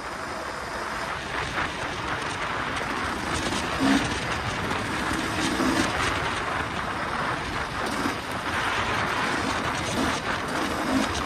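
2023 KTM 300 EXC single-cylinder two-stroke dirt bike engine running under way, mixed with a steady rushing noise of wind over the microphone.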